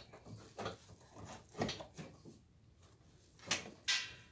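Light knocks and clicks of parts being handled, about five in four seconds, with two sharper ones close together near the end.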